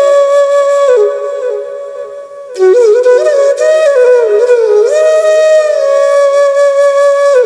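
Background music: a solo flute playing a slow melody of held notes joined by slides and ornaments. It grows quieter about two seconds in, then comes back strongly.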